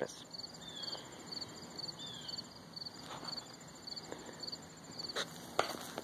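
Insects chirping in a regular train of short high pulses, about two a second, over quiet field ambience, with two short knocks near the end.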